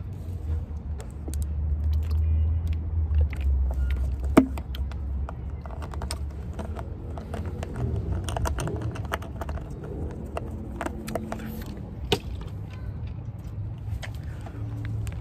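Handling noise from a hand-held phone: scattered clicks and rustles, with a sharp knock about four seconds in and another about twelve seconds in, over a low rumble that swells during the first few seconds.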